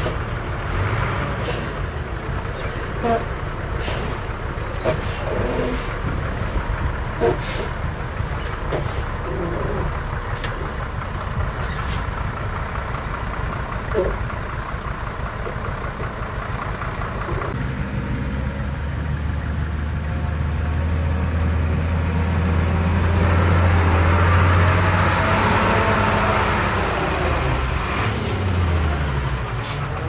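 Heavy diesel earthmoving machine working gravel, its engine running under load with scattered metallic clanks and knocks for the first half. About halfway through the sound changes abruptly to a steady deep engine note that grows louder, then winds down near the end.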